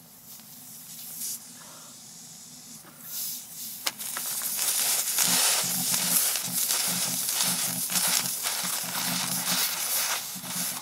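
Tyre plug kit reamer worked back and forth in a puncture in a van tyre's tread: rhythmic rubbery rasping and scraping, faint at first and much louder from about four seconds in.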